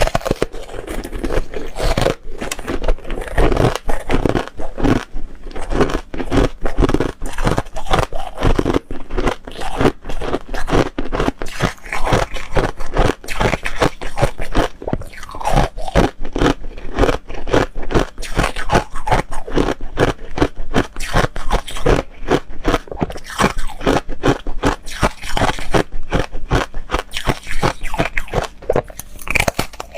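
Foam ice being bitten and chewed: a dense, uneven run of loud crisp crunches, several a second, with scraping sounds between bites.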